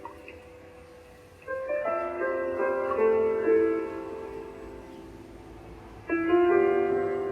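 Slow, soft piano music: chords struck about one and a half seconds and six seconds in, each left to ring and fade away.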